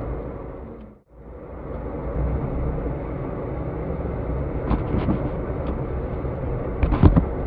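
Steady low rumble of car engine and traffic, picked up by a dashcam inside the car. It fades out and drops away briefly about a second in, then comes back, with a few short knocks near the middle and near the end.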